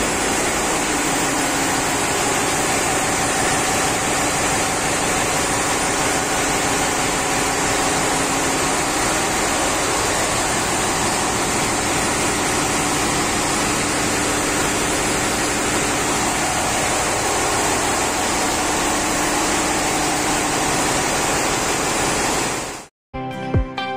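Steady, loud machinery noise of a ship's engine room, where the auxiliary diesel generator engines are running. It cuts off suddenly near the end.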